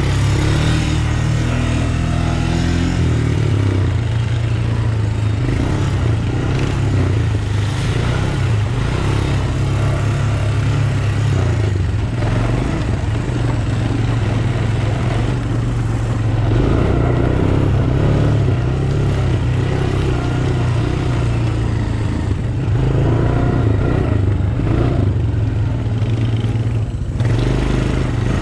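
Honda Recon 250 ATV's air-cooled single-cylinder four-stroke engine running under way, its pitch rising and falling with the throttle, with the body and rack rattling over the rough trail.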